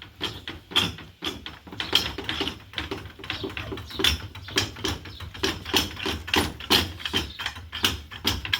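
Irregular mechanical clicks and knocks, a few every second, over a steady low hum.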